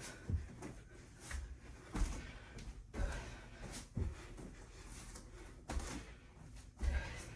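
A person doing burpees on the floor: a string of dull thuds, roughly one a second, as hands and feet land, with hard breathing between them.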